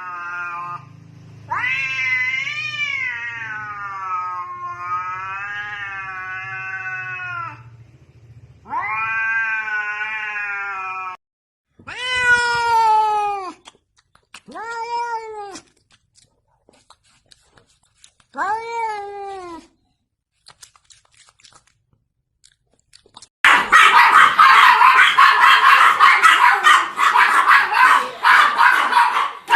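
A cat yowling in long, wavering calls, then giving three shorter meows. Near the end a loud, rough noise with no pitch takes over for about six seconds.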